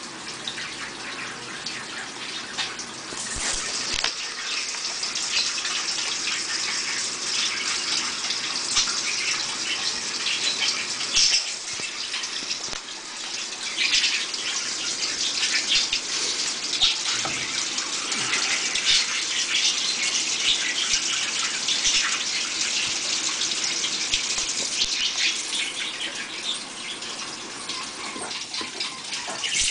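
Water sloshing and splashing inside a Mabe 15 kg washing machine as it washes, with irregular louder surges.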